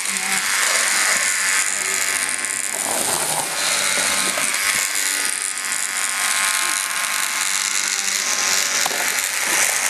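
Small battery-powered Hexbug vibrating toy running on a hard floor, with a steady buzzing rattle from its vibration motor.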